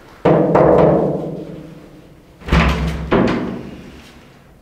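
Music sting of deep drum hits: two hits close together, then two more about two seconds later, each ringing out slowly.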